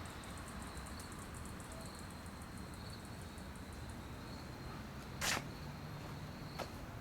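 Quiet outdoor ambience: a steady low hiss with insects chirping in a faint, high, pulsing trill. A sharp knock sounds about five seconds in, and a smaller one comes a second later.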